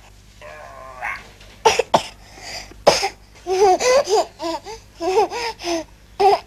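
People laughing in short repeated bursts, with a young child's high voice among the laughter. A few short, sharp bursts sound about two and three seconds in.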